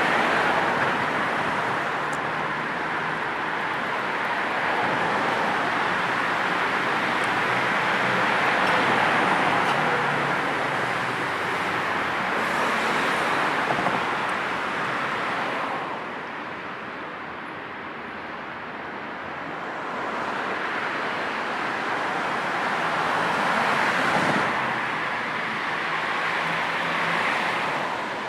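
Road traffic noise: a continuous wash of passing vehicles and tyre noise that swells as cars go by and eases off in a lull about two-thirds of the way through.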